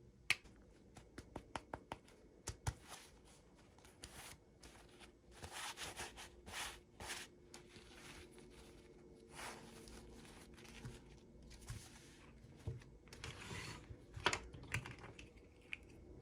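Toy packaging being opened by hand: a quick run of small clicks and taps, then several short bursts of tearing, rustling and crinkling, with more sharp taps near the end.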